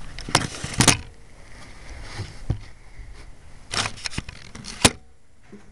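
Airsoft guns firing: about nine sharp snaps, single shots and a few in quick succession, scattered irregularly.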